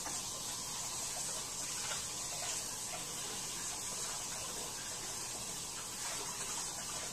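Kitchen tap running steadily while hands are rinsed under the stream.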